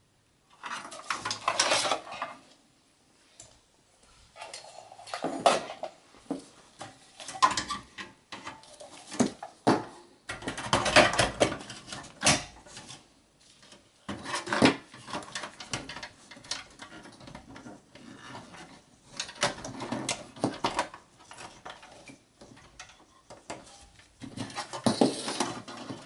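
Metal handling noise as a Dell power supply unit is set into a Dell Optiplex 7070 small-form-factor steel chassis: irregular clicks, clinks and scraping of the sheet-metal casings, with the handling of cables over the motherboard near the end.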